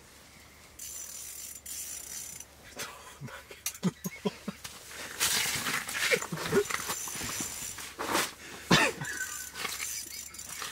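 Small ice-fishing spinning reel being cranked with a steady whirring rattle, twice, with knocks from handling the rod between. Short excited voices come through the middle, and there is a sharp click near the end.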